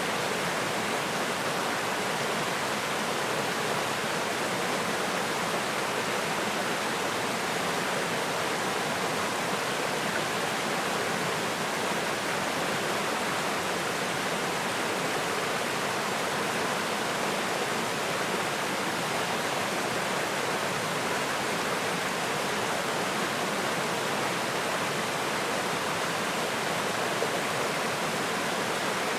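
Small mountain stream rushing over rocks: a steady, even splashing and gurgling.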